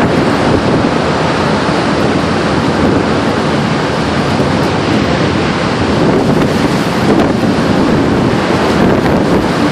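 Steady, loud rush of a violent F5 tornado's winds close by, with wind buffeting the microphone.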